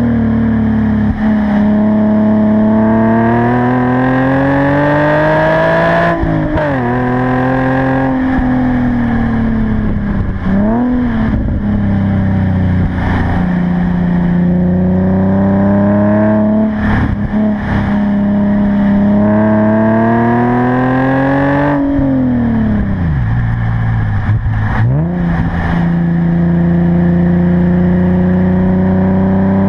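Car engine pulling hard up a winding hill, its pitch climbing steadily under throttle and falling sharply at shifts or lifts, about six seconds in and again around twenty-two seconds, with shorter dips and recoveries through the corners in between.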